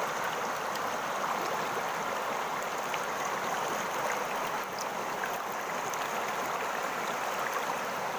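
Steady rush of flowing water, with faint scattered ticks through it.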